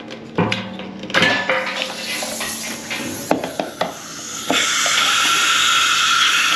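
Metal clanks and knocks as keg couplers are handled and worked off metal beer kegs, followed by a loud steady hiss that starts about four and a half seconds in and lasts about two and a half seconds.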